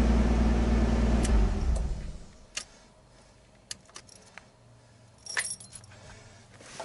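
A car engine heard from inside the cabin, running steadily and then dying away about two seconds in, followed by scattered light clicks and a jingle of keys at the ignition.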